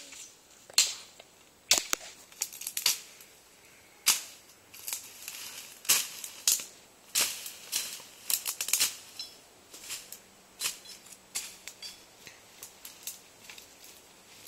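Machete chopping brush and saplings: a run of sharp cracking strikes, uneven, about one or two a second.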